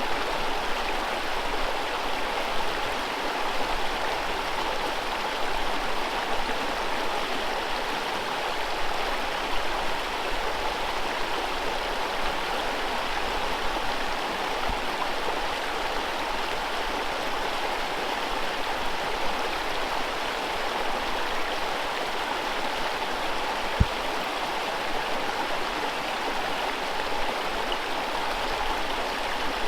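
Forest river running over whitewater rapids: a steady rush of water. A single brief low thump about three-quarters of the way through.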